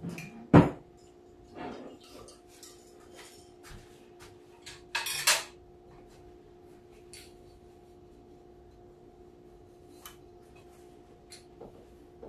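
Kitchen clatter of dishes and utensils being handled: a sharp clank about half a second in, a brief louder rattle around five seconds, and scattered light clicks, over a steady hum.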